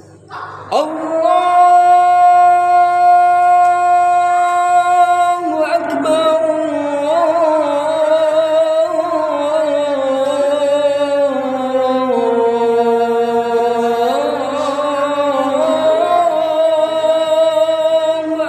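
A man's voice singing the adhan, the Islamic call to prayer, into a microphone. It is one long unbroken phrase that starts a little under a second in and holds a steady high note. From about the middle it moves in ornamented turns down to a lower pitch, then climbs back to a held note near the end.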